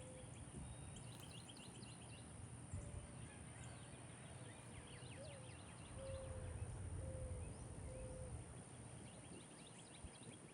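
Outdoor backyard birds calling faintly: quick bursts of high, short chirps from small birds, and a soft low note repeated about once a second, over a steady low rumble.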